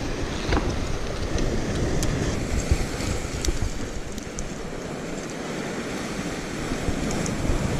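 Sea surf washing over shore rocks, with wind buffeting the microphone. A few light clicks sound through it.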